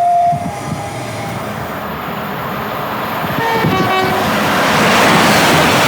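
Train horn sounding two short notes, higher then lower, about halfway through. The rushing noise of a train passing at speed then swells and is loudest near the end.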